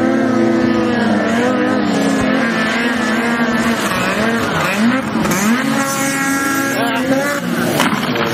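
Polaris snowmobile engine running hard at high revs as it skims across water. Its pitch dips and rises a couple of times about halfway through, then holds high, with a brief knock near the end as it runs up onto the paved boat ramp.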